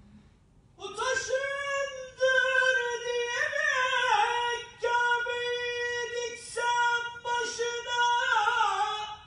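A man's solo voice chanting a Turkish devotional kaside into a microphone, wordless melismatic singing in long, high held notes with ornamented turns. It starts about a second in and breaks for short breaths about two and five seconds in.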